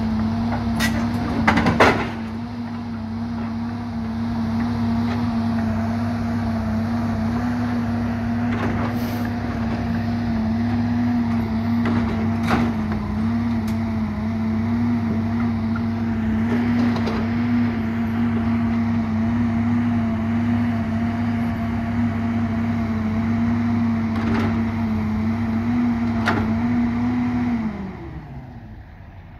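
Heavy-equipment diesel engine running steadily at a constant pitch, with sharp metal clanks about two seconds in and a few lighter knocks later. Near the end the engine winds down, its pitch falling as it shuts off.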